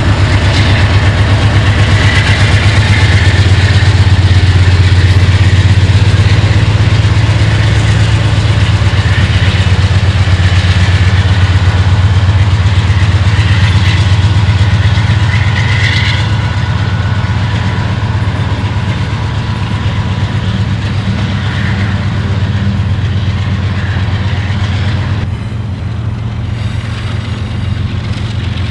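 Canadian Pacific GE AC4400CW rebuilt diesel locomotives pulling away under power, their 16-cylinder engines running with a loud, deep, steady drone over the rumble of tank-car wheels on the rail. The sound eases off in the second half as the units move away. About three seconds before the end it changes abruptly to a CN GE ES44AC working as a mid-train unit.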